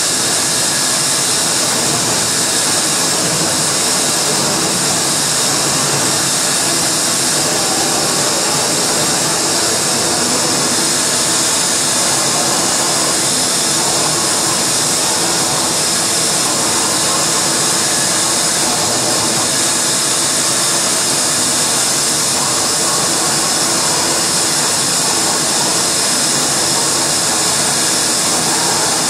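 Live electronic noise performance: a loud, steady wall of distorted noise, made with a hand-held microphone run through effects pedals and a mixer, holding at an even level without a break.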